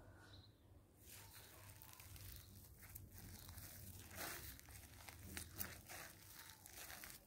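Faint irregular crackling and rustling from the person filming as the phone is moved, with a bird chirping once at the start.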